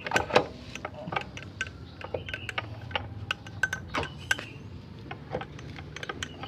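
Irregular metallic clicks and clinks of hand tools and small metal parts as the rear brake cable is unhooked from a Yamaha Mio M3 scooter's rear brake.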